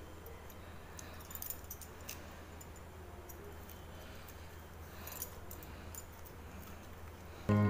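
Faint, scattered clicks and light clinks of a small knife trimming raw banana-flower florets by hand, over a steady low hum. Music comes in just at the end.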